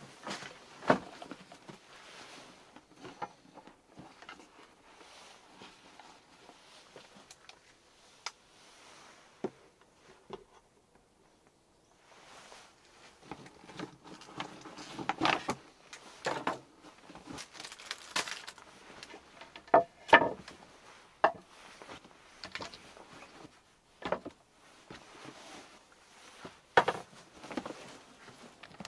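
Gear being unpacked from a backpack and set out on a wooden table: rustling of the pack and plastic bags, with scattered knocks of items set down on the wood.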